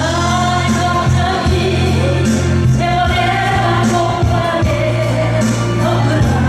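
A solo singer singing a Korean trot song over backing music with a steady beat.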